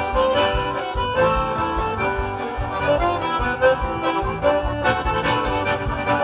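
Forró played live by an accordion ensemble over a steady drum beat: an instrumental stretch with several accordions holding and changing chords.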